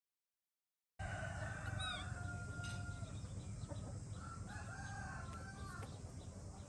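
A rooster crowing once in one long call about a second in, then a few shorter calls, over a steady low hum.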